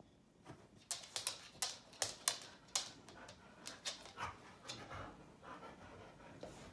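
English bulldog making a rapid run of short, noisy breaths while playing, most of them in the first three seconds, then fainter and sparser.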